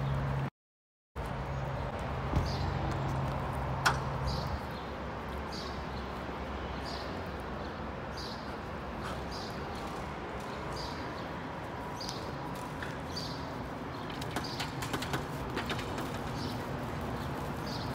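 Outdoor background noise, with a steady low hum in the first few seconds and two sharp clicks. A short high chirp repeats about once a second throughout, and a flurry of light clicks and taps comes near the end.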